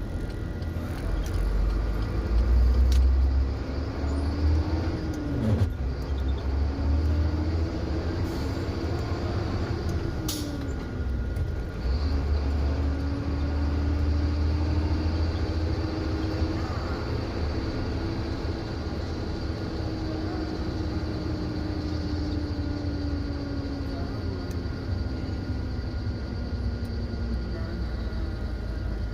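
Motor vehicle engine running with a deep rumble, its pitch climbing and dropping several times as it speeds up and slows. A short hiss comes about ten seconds in.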